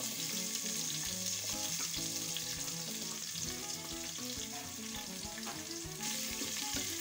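Freshly added chopped onions sizzling in hot oil with fennel seeds and cinnamon in the nonstick inner pot of a Geek robotic electric cooker: a steady frying hiss with small crackles. Background music plays under it.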